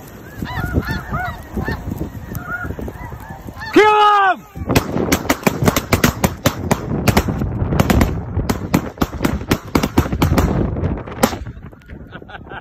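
A flock of snow geese honking overhead, then one loud drawn-out call about four seconds in, followed by a rapid volley of shotgun fire from several hunters that goes on for several seconds and stops about eleven seconds in.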